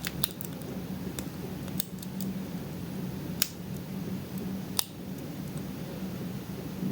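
Lock pick and tension wrench working the pins of a pin-tumbler lock: faint metallic scraping with a few sharp, separate clicks as pins are set under over-tensioning.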